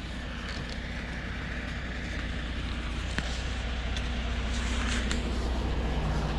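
Motor vehicle engine idling with a steady low hum that grows slightly louder, and a short click about three seconds in.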